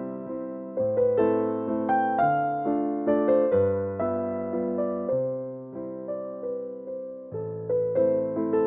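Slow, gentle keyboard music: soft electric-piano notes and chords, each struck and left to fade, with a new note about every half second to second.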